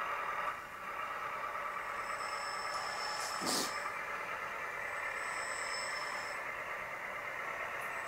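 Sound module of a LESU 1/14 RC articulated dumper playing a steady engine-running sound as the model reverses, with a high reversing alarm sounding long beeps about every three seconds. A brief knock comes about three and a half seconds in.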